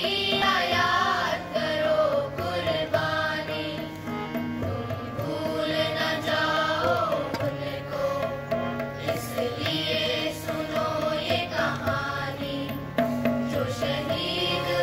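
Harmonium and tabla playing a slow Hindi song, with a group of student voices singing at times.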